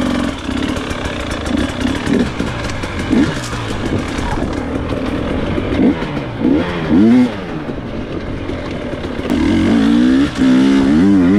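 Dirt bike engine being ridden off, heard from on the bike, its pitch rising and falling with the throttle in quick rev blips partway through, then holding a stronger, steadier note near the end.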